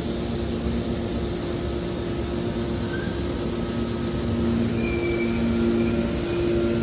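Hydraulic metal baler compactor running: a steady machine hum with two held low tones, with faint high squeals coming in about five seconds in.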